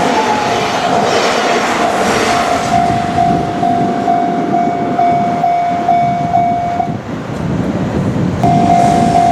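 Level-crossing warning bell ringing in a steady repeating ding, about two strikes a second, over the rumble and wheel clatter of a passing Kintetsu train. The bell stops about seven seconds in and starts ringing again about a second and a half later.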